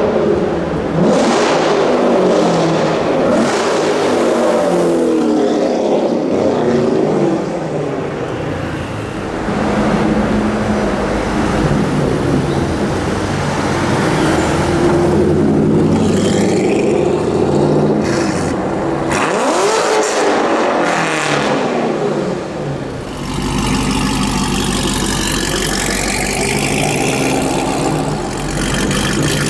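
Loud modified Chevrolet Corvette V8 engines revving hard again and again, the pitch climbing and falling with each blip. About three-quarters of the way through, the sound settles into a deep, steady rumble at idle.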